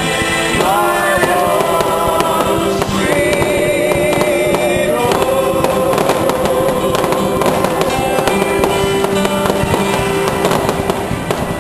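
Music with long, held, wavering melodic notes playing over fireworks popping and crackling, the pops growing denser near the end.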